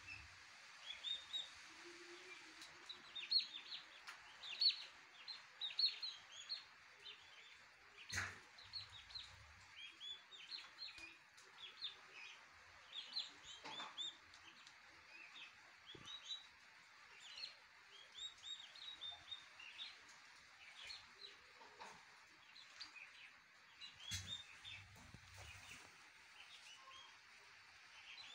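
Turkey poults peeping: many short, high-pitched peeps, several a second, over a steady hiss. Two brief knocks come through, about a third of the way in and near the end.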